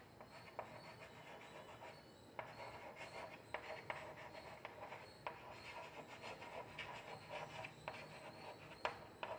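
Chalk writing on a chalkboard: faint, short scratching strokes as letters are written, with a brief pause about two seconds in.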